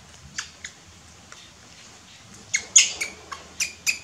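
Baby monkey squeaking while it sucks at a milk bottle: short high squeaks, two early and then a quick run of them in the second half, the loudest about three seconds in.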